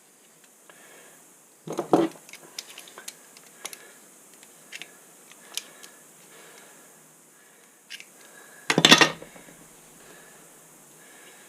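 Hand tools and small hard parts being handled and set down, making scattered clicks and two louder bursts of clatter, about two seconds in and again near nine seconds.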